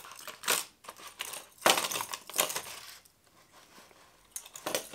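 Clear hard-plastic fishing lure case being handled, with clusters of sharp plastic clicks and clacks as crankbaits are lifted out of it.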